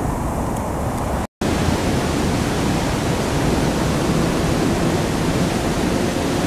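Fountain jets splashing into their basin: a steady, loud rush of falling water. A split-second dropout about a second in, after which the hiss sounds brighter.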